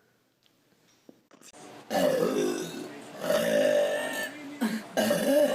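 A person burping loudly: after a quiet first second and a half, a run of long, pitched burps, each about a second long.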